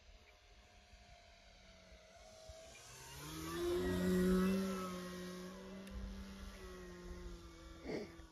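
Electric motor and 15x8 propeller of an Extreme Flight 60-inch Laser RC aerobatic plane, its steady buzzing growing louder as the plane makes a low, close pass about four seconds in, then fading as it climbs away. A brief sharp noise just before the end.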